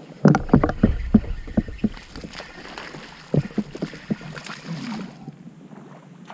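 A quick run of sharp knocks and thumps on the kayak in the first two seconds as the angler fights a fish, a couple more a little later, then a hooked smallmouth bass splashing at the surface.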